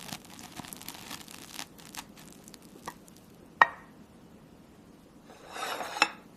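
Kitchen handling sounds: light scraping and scattered clicks, a sharp knock about three and a half seconds in, and a short crackly, rustling scrape near the end.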